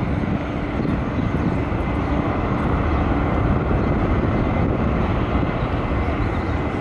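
Jet engines of a Boeing 787-8 (GEnx-1B turbofans) rolling out on the runway after landing: a steady low rumble with a steady drone running through it.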